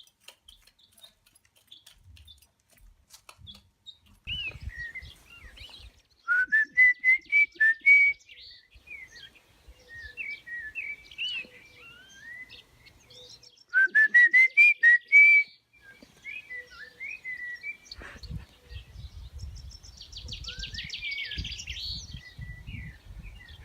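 Bird chirping: scattered short chirps, with two quick runs of rising chirps, each climbing in pitch over about a second and a half. Low rumbling noise comes in over the last few seconds.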